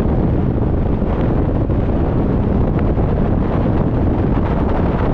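Wind and road noise buffeting the microphone of a moving vehicle: a loud, steady rumble heavy in the low end.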